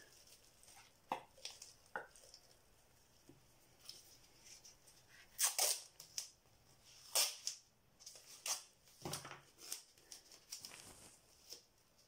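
Scattered handling noises: sharp crinkles, taps and rustles as a taped pot and craft materials are picked up, set down and moved, with the louder ones about five and a half, seven and nine seconds in.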